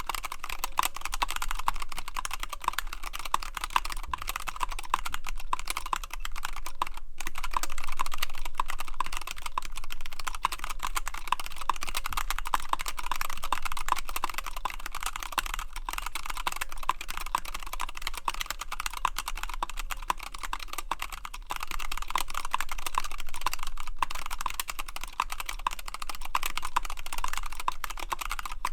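Fast, continuous typing on a NightFox mechanical keyboard with Zealios V2 62 g tactile switches under WhiteFox keycaps, in an integrated aluminium plate with shelf liner under the PCB. The key clacks run densely, with short pauses about seven and sixteen seconds in.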